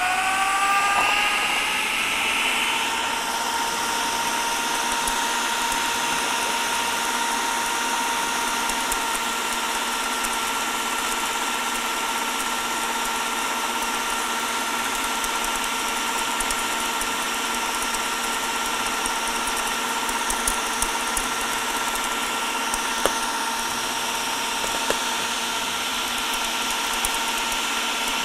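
Electric countertop blender motor running, just switched on: its whine climbs quickly in pitch as it spins up, then holds at a steady high speed while mixing a thin cake batter.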